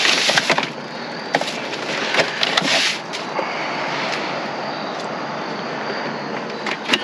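Rummaging through discarded food in a dumpster: crinkling plastic and knocks of packages in the first few seconds, then a steadier rustle, with a sharp click near the end.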